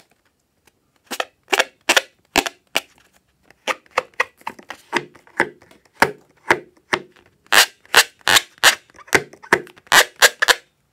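Fingers rubbing and pressing on a taut inflated rubber balloon: an irregular run of about two dozen short, sharp rubbery sounds, louder in the second half.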